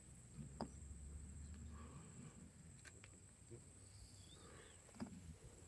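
Near silence: faint open-air ambience with a steady, faint high-pitched whine and a few faint clicks.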